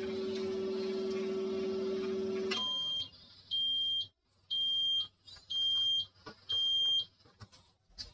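Microwave oven humming as it runs, stopping about two and a half seconds in, followed by four high-pitched beeps about a second apart: the signal that cooking has finished.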